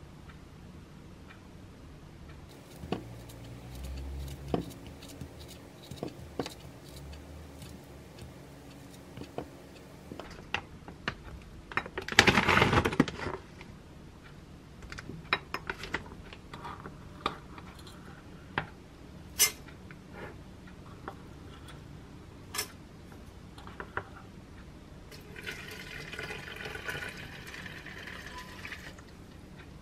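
Kitchen sounds of food being plated: scattered sharp clicks and taps of a spoon on a ceramic plate, with a loud rustling burst about twelve seconds in. Near the end, water is poured into a glass teapot for a few seconds.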